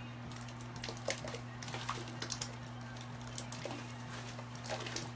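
Irregular light clicks and taps in small clusters over a steady low hum.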